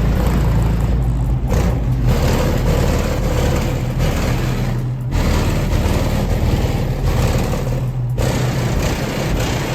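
Rap music played loud through two 15-inch American Bass subwoofers in a car with the windows up, the bass booming heavily. The beat drops out briefly three times, about a second and a half, five and eight seconds in.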